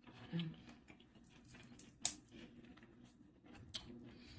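Close-up eating sounds: soft, wet chewing of a Chipotle meal, with three sharp clicks.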